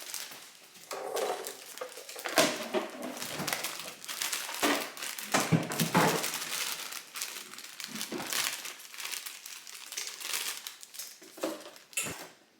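Plastic packaging being crinkled and rustled as it is handled, in irregular bursts, with a few louder bumps.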